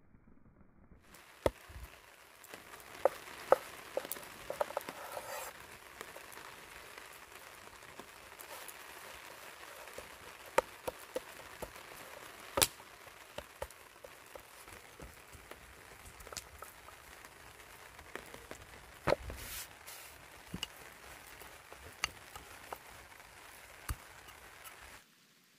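Campfire cooking sounds: a steady hiss with scattered, irregular sharp clicks and knocks, the sort made by a fire crackling or food being cut and handled. It stops abruptly near the end.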